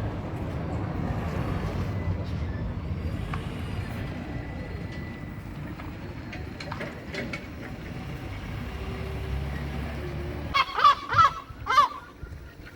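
Seagulls calling: a few faint calls midway, then four loud harsh calls in quick succession near the end, over a steady low rumble.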